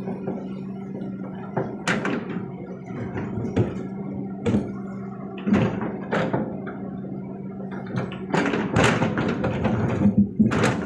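Kobelco SK200 excavator's diesel engine running steadily under a series of sharp knocks and clatters of soil and stones dropping into a dump truck's bed. The clatter is densest and loudest near the end.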